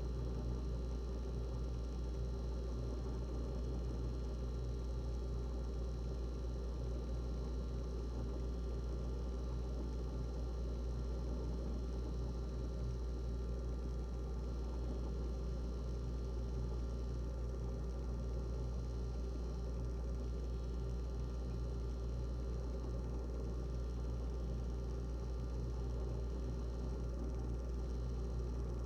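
GE refrigerator running: a steady low hum with several faint steady tones above it, unchanging throughout.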